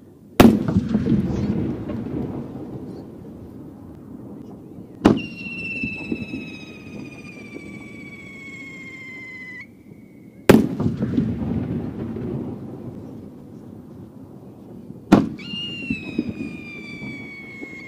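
Japanese aerial firework shells (No. 5, about 15 cm) fired one at a time. A loud burst with a rolling echo comes about half a second in. About five seconds in, a sharper launch bang is followed by a long whistle falling slowly in pitch as the shell climbs, then another loud burst with its echo about ten seconds in, and a second launch and whistle near the end.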